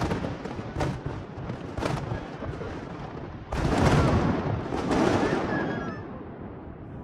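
Fireworks going off: a run of sharp bangs, then a louder burst about three and a half seconds in, with crackling that fades toward the end.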